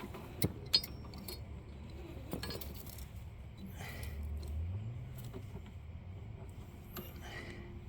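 Light metallic clinks and taps, two sharper ones just after the start, from handling the riding mower's engagement cable and its fittings; a faint low hum swells briefly about four seconds in.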